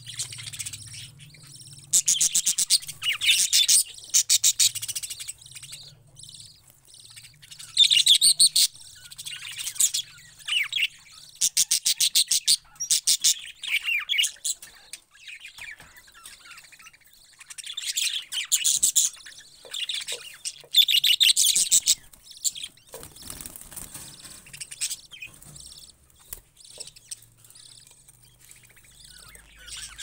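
Budgerigars chattering, in bursts of rapid high chirps a second or few long that come every few seconds, with quieter single chirps in between.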